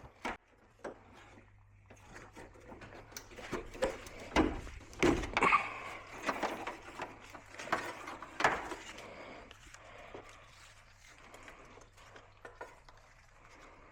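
Scattered knocks, clicks and clatter of car parts being handled, with a few heavier thumps about four to five seconds in and again past eight seconds, over a faint steady low hum.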